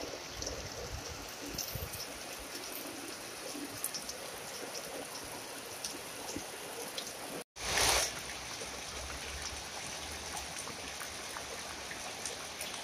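Heavy rain falling steadily on trees and garden foliage: an even hiss with scattered drops. About halfway through, the sound cuts out for an instant and comes back with a brief louder rush of noise.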